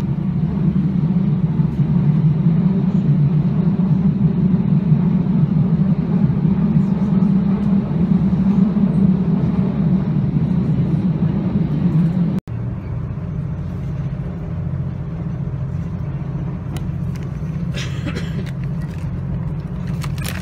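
Steady low rumble of a train running, heard inside the carriage; after a cut about halfway through the rumble is a little quieter. Near the end, a food wrapper rustles as it is pushed into the bin's flap.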